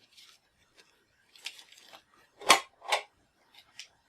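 Items and packaging being handled and set down during an unboxing: a few sharp clicks and knocks, the two loudest about two and a half and three seconds in.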